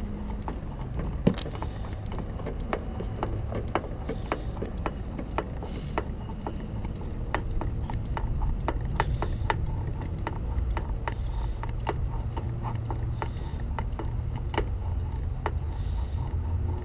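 Mityvac hand vacuum pump being pumped, its plastic handle and valves clicking a few times a second over a low steady rumble, as it draws vacuum to pull air bubbles out of a hydraulic clutch master cylinder and line.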